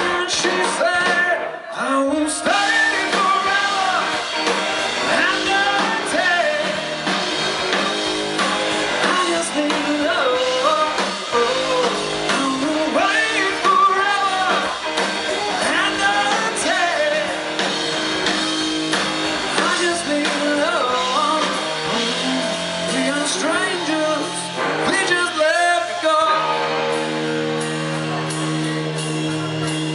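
A live rock band playing a song, a singer over guitar. Near the end the singing stops and the band holds long steady notes.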